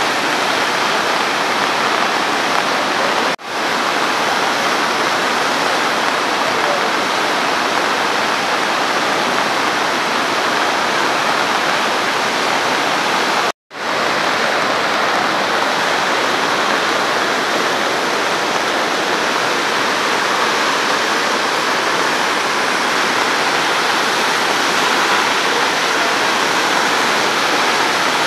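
The Kali Gandaki River in flood, its swollen, muddy water rushing past steadily and loudly. The sound cuts out briefly twice.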